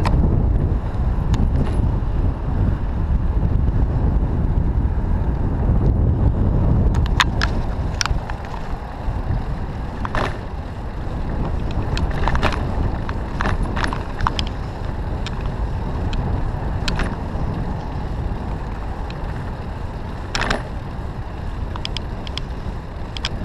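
Riding noise from a moving bicycle: wind buffeting the microphone with a steady rumble of tyres on the road, broken by irregular rattles and clicks from the bike as it rolls over bumps.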